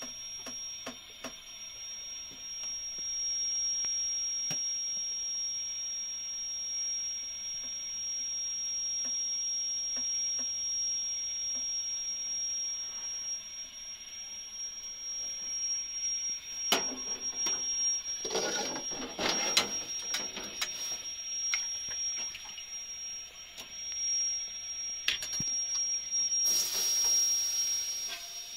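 Metal trays and utensils clattering and knocking, over a steady high-pitched whine; a short burst of hissing near the end.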